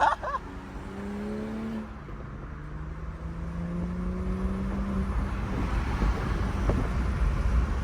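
BMW M340i's turbocharged 3.0-litre straight-six, fitted with an aftermarket intake, accelerating at a distance. Its pitch climbs, drops as it shifts gear about two seconds in, then climbs again. From about five seconds in a rushing road and engine noise grows louder.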